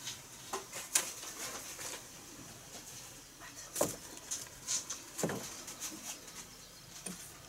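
A few scattered light knocks and rattles from a wire-mesh shelf and its plastic-coated pipe frame on a car's ceiling being handled. The sharpest knocks come about one second in and near four seconds.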